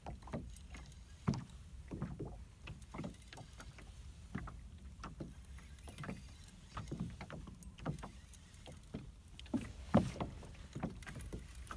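Small boat pulled around on its anchor by a hooked fish: irregular light knocks and water slaps against the hull, the sharpest about ten seconds in.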